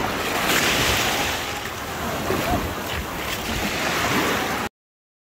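Sea surf washing in the shallows, with wind buffeting the microphone; the sound cuts off abruptly near the end into silence.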